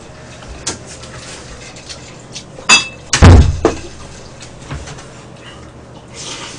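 Tableware being handled at a meal: light clicks of chopsticks and bowls, then about two and a half seconds in a sharp ringing clink of glass or china, followed at once by a heavy thump on the table, the loudest sound here.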